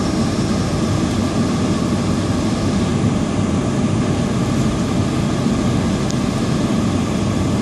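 Steady low drone of a car driving, engine and tyre road noise heard from inside the cabin.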